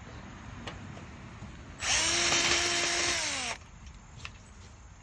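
Power drill running for about a second and a half to back out a screw, holding a steady pitch and then winding down as the trigger is released.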